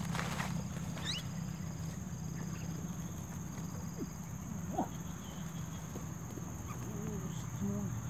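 Steady high insect drone over a low hum, with a few short bird chirps and a single thump about five seconds in.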